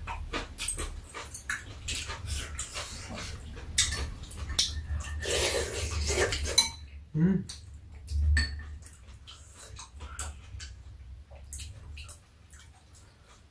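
Eating sounds at a meal of soup: metal spoons and chopsticks clicking and scraping against bowls in scattered irregular clinks, with slurping and chewing, the loudest stretch of slurping about five to six and a half seconds in.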